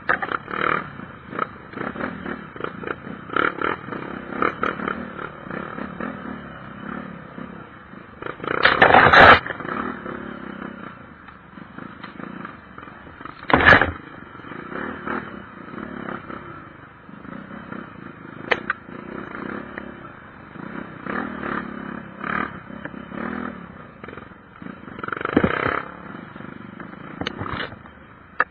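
Domestic cat purring close to the microphone, a steady rhythmic purr that swells and eases with each breath, with two brief louder bursts partway through.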